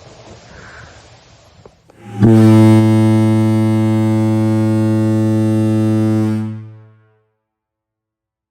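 Kahlenberg KM-110 ship horn sounding one long blast: a deep, steady note rich in overtones that starts sharply about two seconds in, holds for about four seconds, then fades out over about half a second. Faint background noise comes before it.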